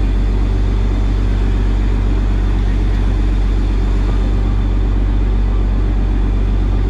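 Fishing trawler's diesel engine running steadily: a loud, even, deep drone with no change in speed.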